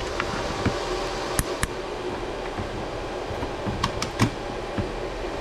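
Plastic push-pins of a CPU heatsink-fan clicking into the motherboard mounting holes as they are pressed down: a few sharp clicks, two about a second and a half in and three more around four seconds, over a steady background hiss.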